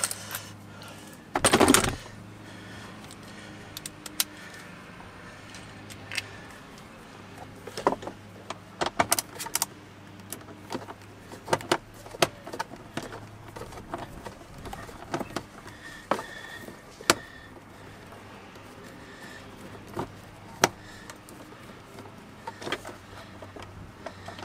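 Scattered sharp metallic clicks and clinks of a 7 mm socket tool working the screws that hold a truck's instrument cluster, with a louder clatter about a second and a half in. A steady low hum runs underneath.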